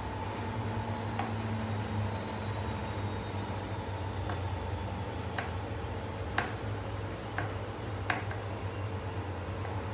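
Kitchen knife cutting through fried meatloaf and tapping down on a plastic cutting board: several short sharp knocks, mostly in the second half, about a second apart. A steady low mechanical hum runs underneath.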